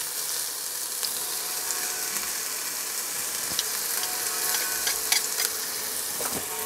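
Chopped shallots frying in hot sesame oil in a cast-iron Dutch oven, a steady sizzle, with a few light clicks from a garlic press being squeezed over the pot.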